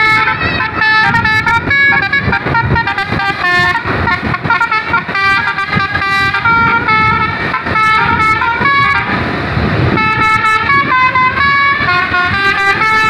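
Bus 'telolet basuri' multi-tone musical horn playing a melody, several tones sounding together and stepping from note to note, over a low rumble. About nine seconds in the notes break for a second-long rush of noise, then the tune resumes.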